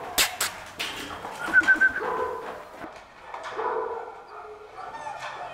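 Puppies giving repeated short high yelps and whines, with a few sharp knocks just after the start.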